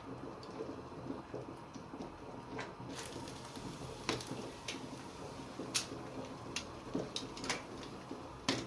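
Water bubbling in a pot as a whole head of cabbage is dunked and turned in it for blanching, with occasional light clicks and knocks against the pot.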